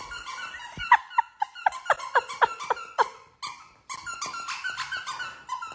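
Large dog whining in a rapid run of short squeaks, each falling in pitch, about four a second. After a brief lull near the middle, fainter squeaks follow.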